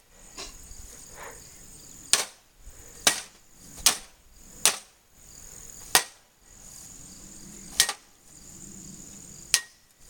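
A metal bat striking a microwave oven's casing: about seven sharp clanging hits at uneven intervals, roughly a second apart, over a faint steady high-pitched trill.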